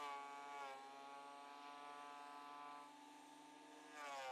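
Vevor 12.5-inch benchtop thickness planer running with a steady motor whine. The whine drops in pitch right at the start and again near the end as the cutterhead bites into a rough, warped chainsaw-milled board.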